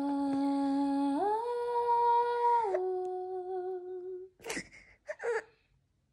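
A woman humming a slow, sad tune in three long held notes: a low note, a step up to a higher one, then down to a middle note that fades away. Near the end come two short whimpers from a baby starting to cry.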